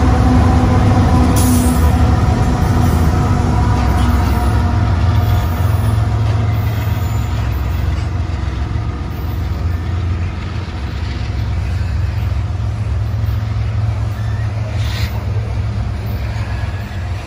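Two BNSF freight trains passing close by: diesel locomotive engines running with a steady drone and steel wheels rumbling over the rails, the locomotive drone fading after the first few seconds while loaded coal hoppers keep rolling by and the rumble slowly dies down.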